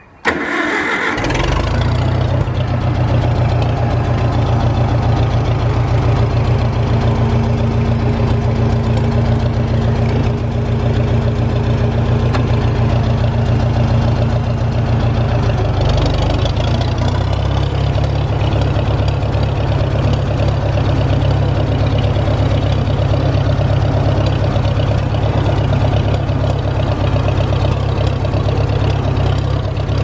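Farmall 450 tractor engine started on the dash starter button: a brief crank, then it catches within about a second and runs steadily. Its note shifts a little about halfway through.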